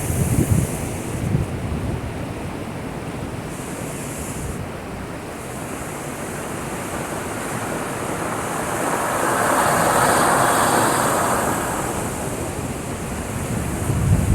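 Heavy typhoon-driven surf breaking against a breakwater: a continuous rush of churning water that swells into a louder wash about two-thirds of the way through.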